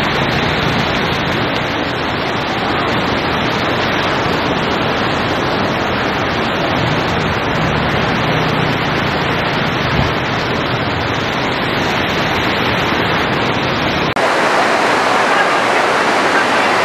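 Swollen, silt-laden mountain river in flood, its fast water rushing past in a loud, steady wash of noise.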